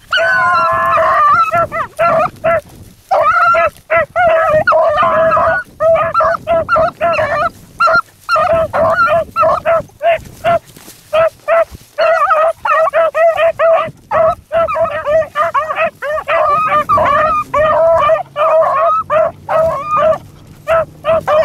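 Several beagles baying on a rabbit's trail: rapid, repeated hound voices that overlap, with only brief pauses as the dogs give tongue while running the line.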